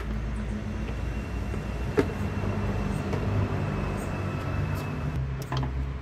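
Plastic engine cover of a small outboard motor being handled and set aside: a sharp knock about two seconds in and a few light clicks near the end, over a steady low rumble.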